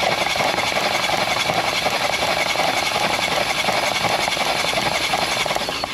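Kia Rio's 1.6-litre four-cylinder engine spun over by its starter with the spark plugs out, a fast, even cranking churn that never fires. It is being cranked to blow water out of the hydrolocked cylinders, and it stops shortly before the end.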